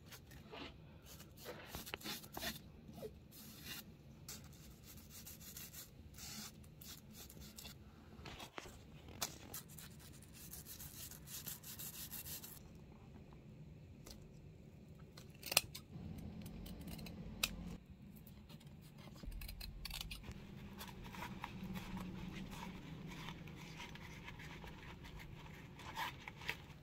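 Handwork on black nylon webbing and lining fabric: a bristle brush scrubbing adhesive onto the strip, then rubbing, scraping and rustling as the strips and lining are pressed and folded by hand, with a few sharp clicks.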